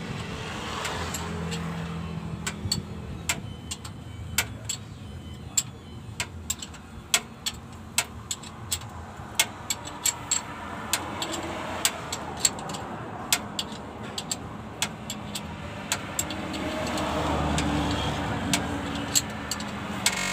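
Irregular sharp metallic clicks and taps of hand tools working on the clutch cylinder fittings under a Mitsubishi Canter, over a low hum of road traffic that swells late on.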